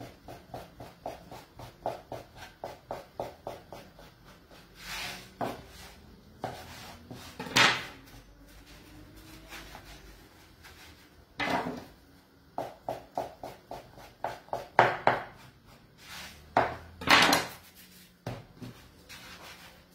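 Knife cutting a rope of potato gnocchi dough on a wooden board: quick, regular taps of the blade on the wood, about four a second, in runs, with a few louder knocks and scrapes in between.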